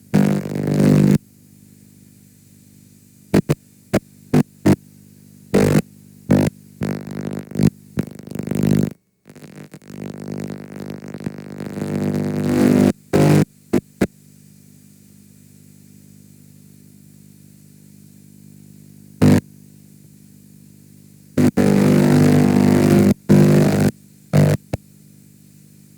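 Damaged VHS tape playback: a low steady hum broken by loud, distorted buzzing bursts that cut in and out abruptly. Near the middle the sound drops out completely for a moment, then swells back for a few seconds.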